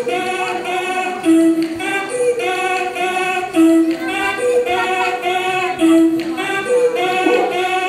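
Music for a stage dance routine: a high, voice-like melodic phrase repeating about every two seconds, with no drums or bass.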